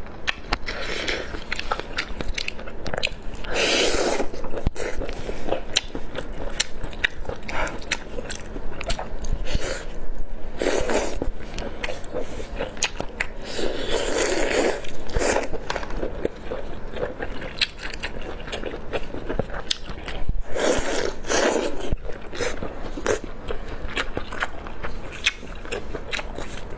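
Close-miked eating: biting and chewing skewered seafood, with wet mouth clicks throughout and several louder wet bursts.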